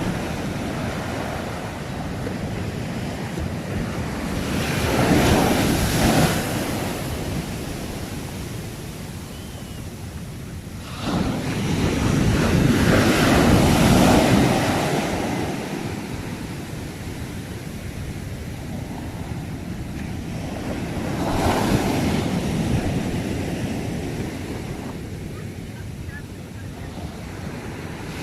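Sea waves breaking as a steady surf hiss, swelling three times: about five seconds in, again more suddenly and for longer about eleven seconds in, and once more about twenty-one seconds in.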